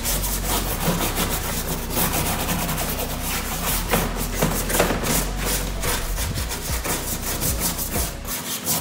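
Stiff hand brush scrubbing a wet rubber truck floor mat coated with rubber-mat cleaner, in quick, even back-and-forth strokes.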